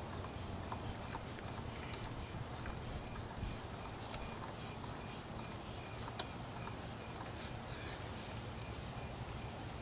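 Inflatable air wedge being pumped up with its hand bulb to spread a car door from its frame: a quick run of short airy puffs, about two or three a second, which stop near the end, over a low steady hum.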